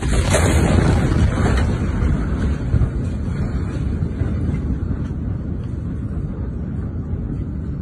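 Blast wave of the 2020 Beirut port ammonium-nitrate explosion striking the phone: a loud, deep rumbling roar buffeting the microphone, slowly dying away.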